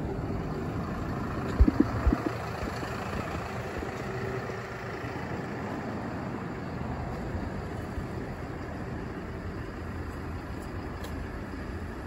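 Steady low outdoor background rumble, with a few sharp knocks about two seconds in.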